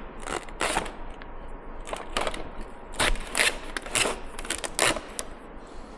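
Duct tape being peeled off a small metal tin, in a series of short ripping pulls.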